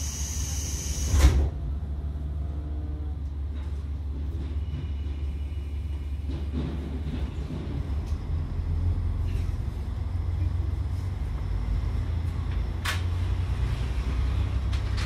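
KiHa 140 series diesel railcar heard from inside: a high air hiss stops with a loud thump about a second in, then the diesel engine's steady low rumble carries on, growing a little louder near the end, with a single sharp click late on.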